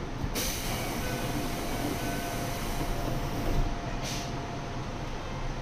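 Keikyu 1500 series electric train: a steady low rumble with a faint steady hum, and brief bursts of hiss just after the start and again about four seconds in.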